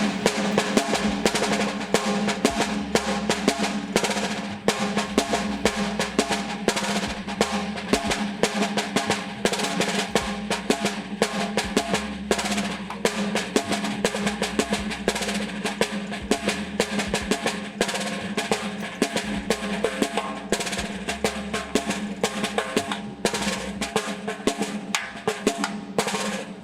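Caixa (Brazilian snare drum) played continuously at a quick tempo in the marcha rancho rhythm: a dense run of sharp strokes over a steady ring from the drum.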